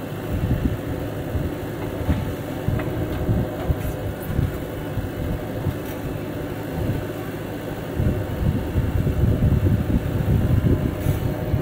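Diesel engine of a JCB 3DX backhoe loader running under hydraulic load as its rear arm digs and swings soil into a tractor trolley, with the Mahindra tractor's engine running alongside. The machinery gets louder from about eight seconds in.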